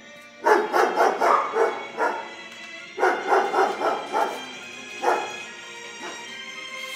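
Bulldog barking in rapid runs of several barks, with single barks between, over background music.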